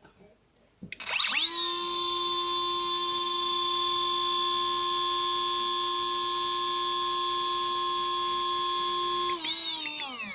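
Emax PM1806 2300Kv brushless outrunner motor running with no propeller. It spins up quickly about a second in to a steady, high-pitched electric whine, holds that speed, then is throttled back near the end, its whine falling as it winds down.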